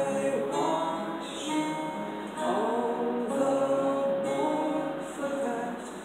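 A man singing a slow song over two strummed acoustic guitars.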